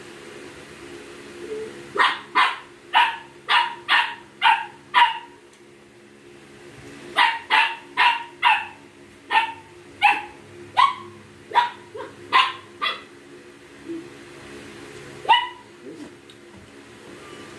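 A dog barking in two runs of quick barks, about two a second, then one single bark near the end.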